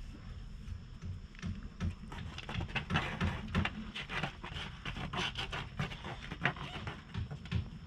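A hand patting a cat's fur on the lower back: quick, repeated soft thumps with a rustle of fur, close to the microphone.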